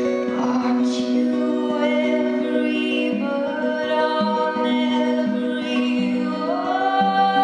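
A woman singing a slow song live, her long held notes over a steady sustained accompaniment that moves in steps from one chord to the next.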